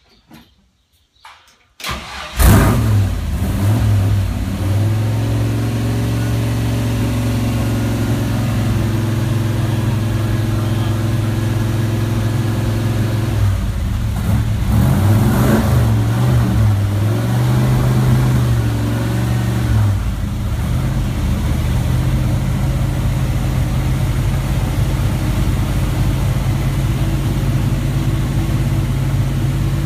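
Classic sports car's engine started about two seconds in, catching at once and settling into a steady idle. It is revved a few times in the middle, the pitch rising and falling, then drops back to a steady idle.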